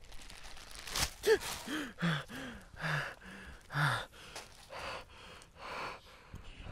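A man gasping and panting in short, breathy bursts about once a second, with a few short whimpering cries that fall in pitch in the first few seconds: frightened, heavy breathing.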